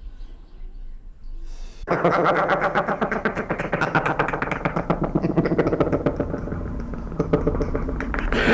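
A mechanical alarm clock bell starts ringing suddenly about two seconds in: a loud, fast, continuous clatter of hammer strikes.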